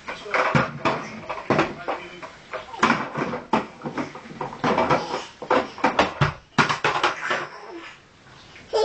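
Hollow plastic toddler slide knocking and bumping as a toddler climbs its steps and hauls himself over the top by the handles: a run of irregular knocks.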